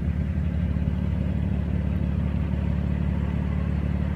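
A car engine idling steadily, a low, even drone.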